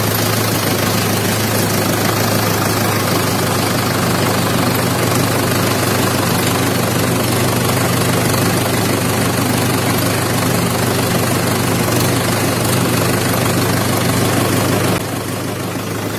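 Farm tractor engine running steadily with a low, even drone and clatter while the tractor drives across a field; it gets a little quieter about a second before the end.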